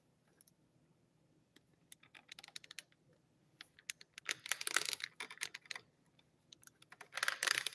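Bursts of rapid light clicking and rustling, coming in three clusters after a quiet start, the loudest near the end: handling noise close to the microphone.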